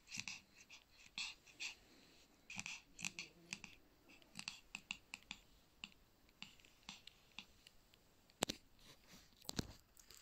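Pomeranian's mouth and breath noises while being petted: a faint, irregular run of short smacks, clicks and huffs, with two sharper knocks near the end.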